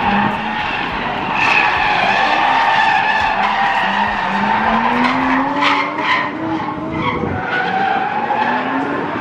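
Drift car sliding sideways, its tyres squealing while the engine is held on high revs; the engine note climbs twice in the second half.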